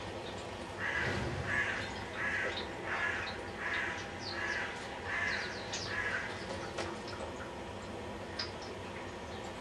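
A bird calling eight times in an even series, about one call every three-quarters of a second, stopping about six seconds in. Small birds chirp faintly behind it.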